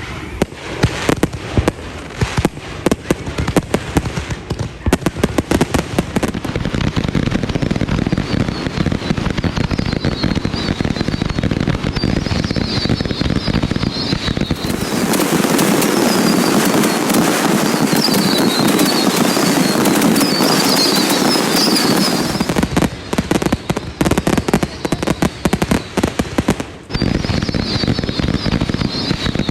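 Dense barrage of consumer fireworks, 500-gram multi-shot cakes and mortar shells, going off in rapid overlapping bangs and crackles without a break.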